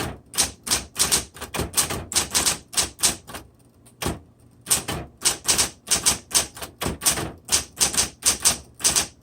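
1960s Smith Corona Coronet Automatic 12 electric typewriter being typed on: a steady run of sharp key strikes, about three or four a second, with a brief pause a little over three seconds in.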